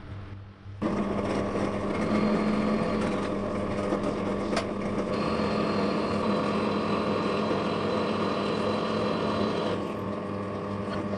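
Bench drill press running, its motor and spindle giving a steady mechanical hum that starts suddenly about a second in and cuts off at the end. A higher whine joins for several seconds in the middle, with one sharp click shortly before it.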